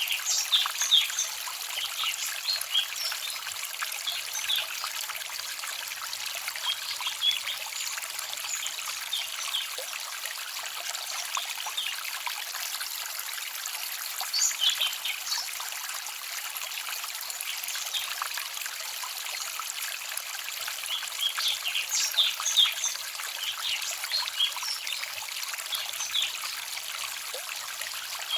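Small forest stream trickling and babbling over stones, a steady light rush of water with many quick splashy gurgles that bunch up now and then.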